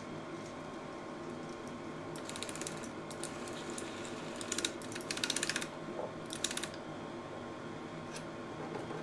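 Silma 250S Super 8 projector's motor humming steadily, with three spells of rapid mechanical clattering from its film transport as the film leader is pushed into the threading path.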